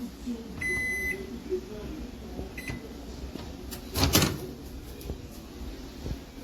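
Microwave oven beeping: one long beep about half a second in and a short beep at around two and a half seconds, then a brief, louder noise about four seconds in.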